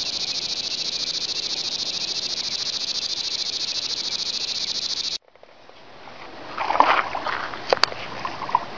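A steady, high-pitched, fast-pulsing insect chorus that cuts off abruptly about five seconds in. Then quieter riverbank air with a few sharp clicks and the hooked rainbow trout splashing at the surface.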